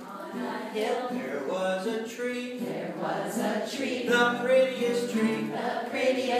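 A man singing to an acoustic guitar, possibly with others joining in.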